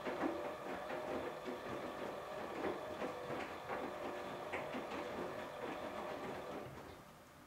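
Electrolux EWF9042R7WB front-loading washing machine running with a steady hum and irregular knocking and clattering, the vibration knocking it shows with a light load. The sound dies down near the end.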